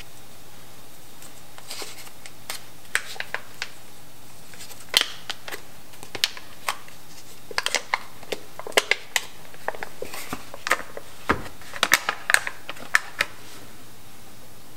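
Paper butter wrapper crinkling and rustling in a run of sharp, irregular clicks as a block of butter is taken from its carton and unwrapped.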